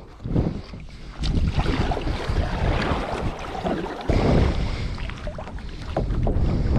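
Wind buffeting the camera microphone over water splashing and lapping as a kayak is paddled, with a sudden jump in level about four seconds in.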